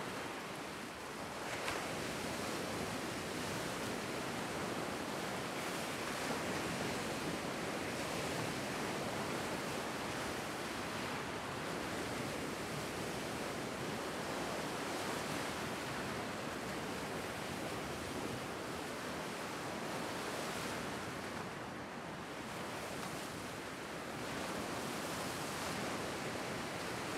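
Lake Superior waves breaking and washing over a flat rock shoreline: a steady, continuous wash of surf.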